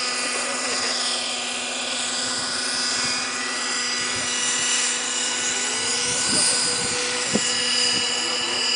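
Electric RC F6F Hellcat model in flight, its 1000Kv brushless motor and 9-inch three-blade propeller giving a steady whine whose pitch wavers a little as the plane flies around.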